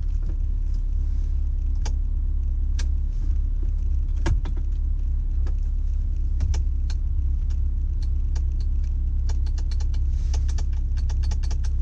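Honda S2000's four-cylinder engine idling with a steady low rumble, under a scatter of short light clicks as the soft-top latches and switch are worked. The top does not respond.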